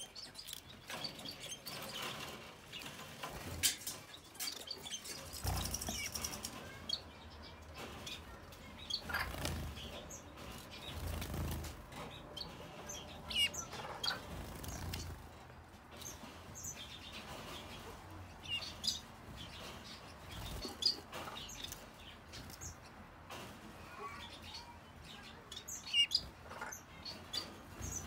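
Red-headed finches chirping: scattered short, high chirps, with wing flutters and soft rustles and knocks as the birds move about the cage.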